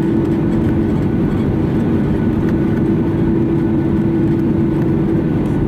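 Boeing 737-900ER's CFM56-7B jet engines at taxi idle, heard inside the passenger cabin as a steady rumble with a steady hum.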